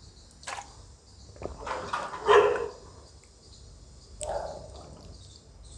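A woman burping after gulping down a full glass of glucose drink: one long, loud burp about two seconds in, then a shorter one a couple of seconds later.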